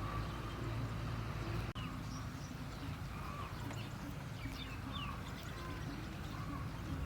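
Birds calling with short chirps and whistles over a steady low rumble of outdoor background noise, with a brief gap in the sound just under two seconds in.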